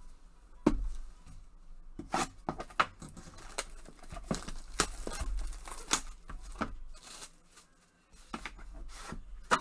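A cardboard trading-card box being handled and opened by hand: scattered rustles, taps and scrapes of cardboard and packaging, with a brief lull about three-quarters of the way through.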